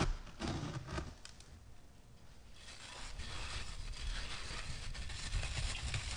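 Hands pat dry sand a few times, then squeeze and crush a dry sand-and-cement block. From about two and a half seconds in comes a steady gritty crunching as it crumbles.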